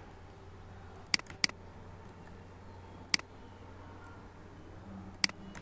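Computer mouse button clicking four times at uneven intervals over a steady low hum. These are clicks placing pen-tool anchor points along an edge.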